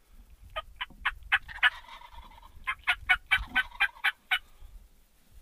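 Wild turkey calling: two runs of quick loud notes, about four a second, with a short pause between them and the second run longer.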